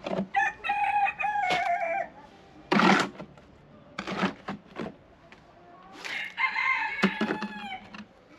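Young roosters crowing: two drawn-out crows, one starting about half a second in and lasting about a second and a half, the other starting about six seconds in, each dropping slightly in pitch at the end. Short sharp sounds fall between the crows, the loudest about three seconds in.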